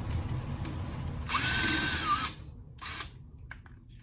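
Electric screwdriver running to back out a screw, a low rumble giving way to a loud whining run of about a second, then a short final burst near the end.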